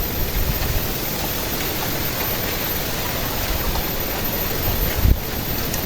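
Strong wind blowing across the microphone: a steady rushing noise with low buffeting thumps, the loudest about five seconds in.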